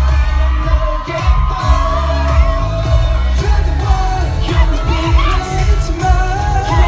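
Live K-pop performance: male vocalists singing into microphones over a loud backing track with a heavy, pounding bass beat.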